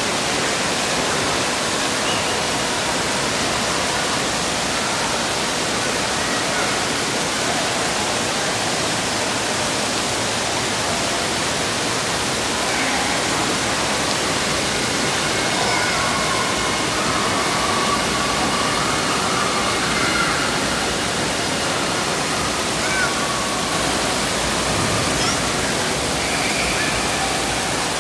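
Steady rushing hiss of water spraying and splashing from the fountains and sprays of an indoor water park's wading pool, with faint children's voices and calls over it in the middle and near the end.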